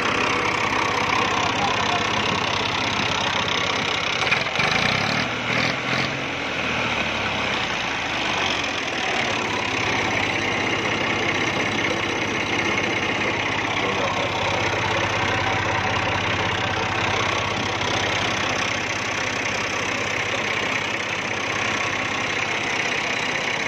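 Massey Ferguson 240's three-cylinder diesel engine idling steadily, with a couple of brief clicks about five seconds in.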